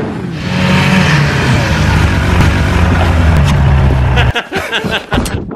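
Snowmobile engine running under power, steady, then cutting off abruptly about four seconds in.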